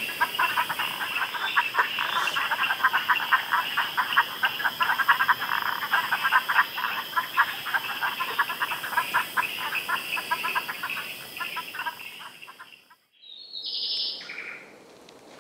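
A night chorus of many frogs calling together, a dense continuous mass of rapid clicks and chirps. It cuts off abruptly about 13 seconds in, and a brief high-pitched call follows about a second later.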